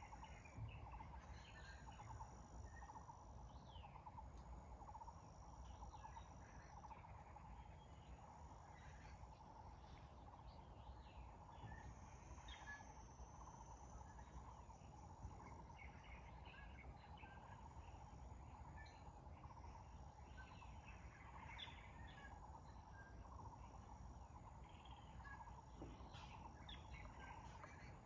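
Faint chorus of wild birds calling in a mountain valley: many short chirps and whistles from several birds, scattered all through, over a steady low background hiss and rumble.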